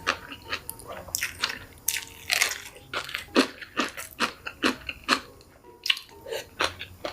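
Close-miked eating: a person biting and chewing food, an irregular string of short, sharp mouth sounds about two to three a second.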